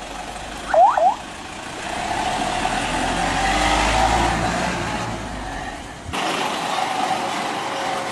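Flatbed tow truck engine running with road and traffic noise, swelling in the middle. About a second in come two quick rising chirps, the loudest sound here. The sound changes abruptly about six seconds in.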